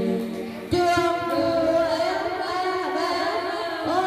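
A song sung into a microphone over instrumental backing, heard through a loudspeaker. About three-quarters of a second in, the music dips briefly and then comes back in suddenly at full level.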